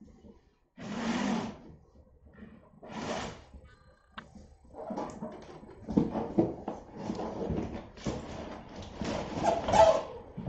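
A large cardboard box being handled on a wooden floor. There are two brief scraping slides of cardboard about one and three seconds in, then from about halfway a steady run of knocks, bumps and rustles as the box is opened and shifted.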